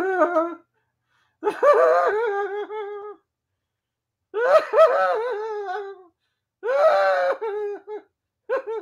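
A man's exaggerated, high-pitched laughing and giggling sounds in four separate bursts, a performed show of being happy.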